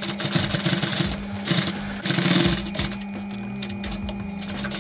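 Industrial flatbed sewing machine stitching a motorcycle seat-cover panel in a few short runs of rapid stitches, the loudest about two seconds in.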